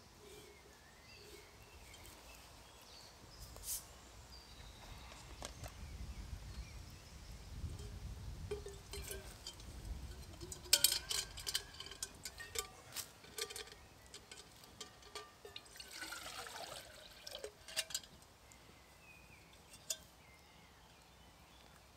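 Water poured from a plastic bottle into a metal camping pot, with light metallic clinks from the pot and its wire handle as it is taken down and hung back up.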